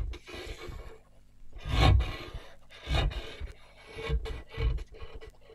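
A series of uneven rough scraping strokes, the loudest about two seconds in, over a faint steady low hum.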